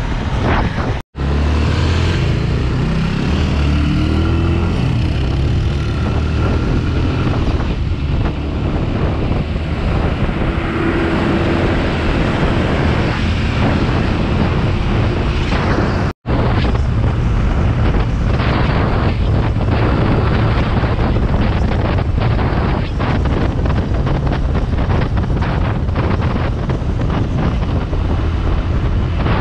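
Motorcycle riding at road speed, about 50 to 65 km/h: the engine running steadily under wind rushing over the microphone. The sound cuts out for an instant twice, about a second in and about halfway through.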